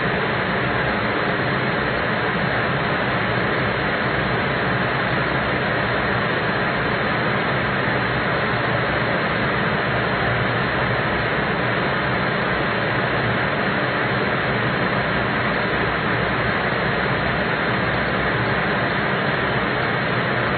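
HALT test chamber running under vibration stress: a steady, even mechanical roar that does not change.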